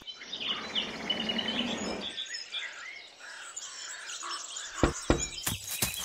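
Small birds chirping and twittering in a wintry outdoor ambience, over a soft hiss for the first two seconds. In the last second or so a quick run of sharp clicks or crunches joins them.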